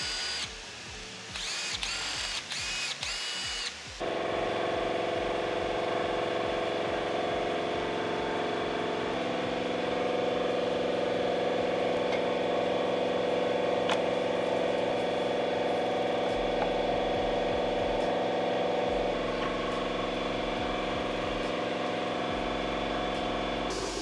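A cordless drill spins a bolt in two short whining bursts in the first few seconds, cleaning old thread locker off its threads. From about four seconds in, steady background music with held chords takes over.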